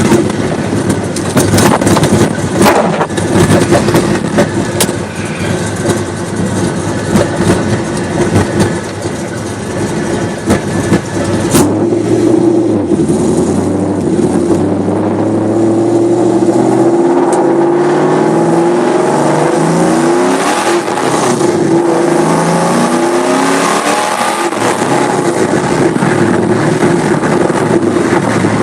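A car's LQ4 6.0-litre V8 running loud over wet-road tyre noise, then revving up in several climbing pulls with drops in pitch between them, as the car accelerates through the gears.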